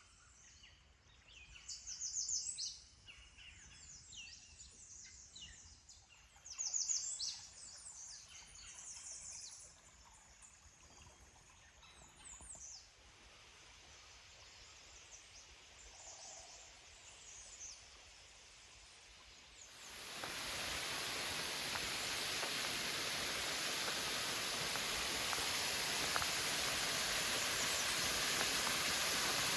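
Woodland songbirds singing in short chirps and trills, loudest about two and seven seconds in. About twenty seconds in, a steady rush of falling water from a creek waterfall comes in and holds.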